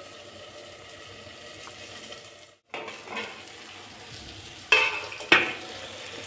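Onion and capsicum frying in a covered steel kadai, a steady low sizzle that drops out briefly about halfway through. Near the end the steel plate lid is lifted off, with two sharp ringing metal clanks.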